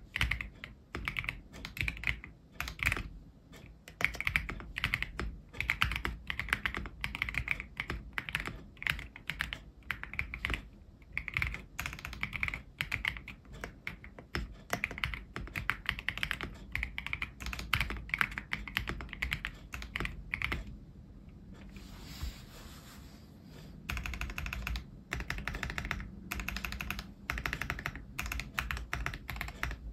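Typing on a CIY GAS67 mechanical keyboard with lubed Ganss Soul Silver switches, XDA-profile keycaps and a PE switch-foam mod: a steady run of keystrokes, several a second, with a brief lighter stretch about two-thirds of the way through.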